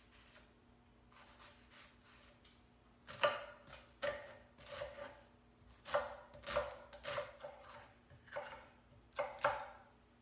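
Chef's knife dicing a red onion on an end-grain wooden cutting board: irregular taps of the blade on the board. The taps are soft at first and sharper and more frequent from about three seconds in.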